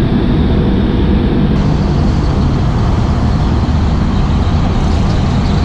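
Heavy engines of a large carnival cart running with a steady low drone as the cart rolls slowly past.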